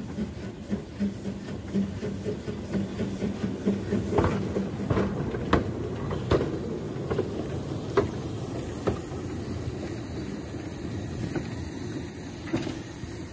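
Narrow-gauge Quarry Hunslet steam locomotive with tender running past close by. At first there is a quick regular beat from the engine. From about four seconds in, its wheels click sharply over the rail joints, roughly once a second. The sound then settles into a softer running noise with a steam hiss as it draws away.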